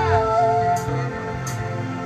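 Live kecimol band music: held melody notes with a few light cymbal ticks, the low bass dropping away early on.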